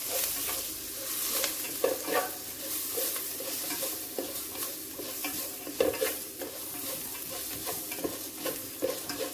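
Sliced onions and spices sizzling in hot oil in a stainless steel pan while being stirred and sautéed. Stirring strokes scrape against the pan every second or so, the loudest about two seconds in and near six seconds.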